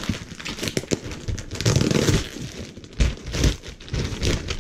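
Plastic and paper parts packaging crinkling and rustling as it is handled close to the microphone, in irregular crackles that swell louder about two seconds in and again past three seconds.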